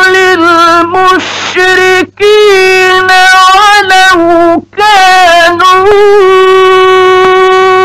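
Male reciter chanting the Quran in the ornate, melodic mujawwad style, in a high, sustained voice with wavering ornaments. Short pauses for breath break the phrases, and a long held note runs through the last couple of seconds.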